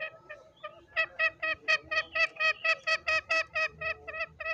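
Green junglefowl cackling: a fast, even series of sharp, pitched notes at about four a second, loud from about a second in, after a few softer, irregular notes.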